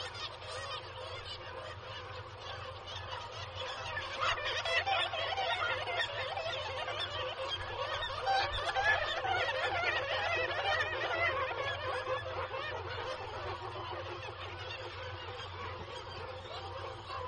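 Black-legged kittiwake nesting colony calling: many overlapping cries at once. It swells about four seconds in and eases off again after about twelve seconds.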